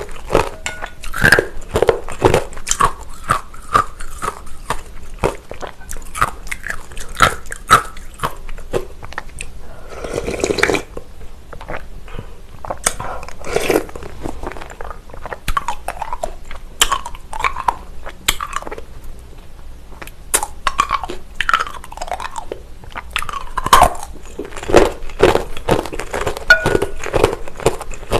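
Close-miked eating of agar-agar noodles in cold soybean soup: slurps and chewing with crunches, and many sharp clicks of a plastic spoon in a glass bowl. One longer slurp comes about ten seconds in.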